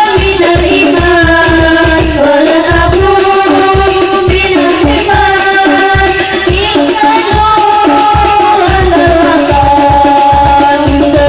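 Hadroh ensemble performing: rebana frame drums beating a steady rhythm under a melody of long held notes.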